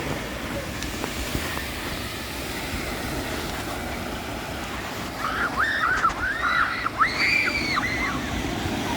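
Ocean surf washing steadily against a rocky shore, with wind on the microphone. About five seconds in, a quick string of six or so high, arching chirping calls rises over it for about three seconds.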